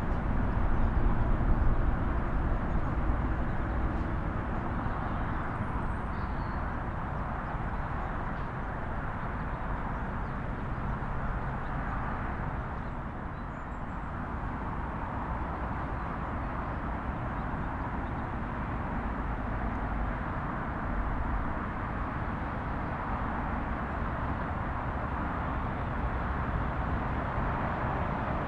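Steady outdoor rumble with a hiss, unbroken and without distinct events, a little louder in the first couple of seconds.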